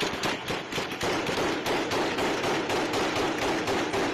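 Heavy automatic gunfire from several guns in a street gunfight, many shots a second with no break.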